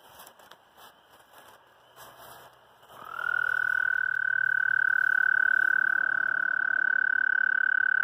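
A male American toad gives its mating trill: one long, steady, high musical trill that starts about three seconds in with a slight upward slide and then holds its pitch. Before it come a few seconds of brushing and handling clicks as the camera moves through grass.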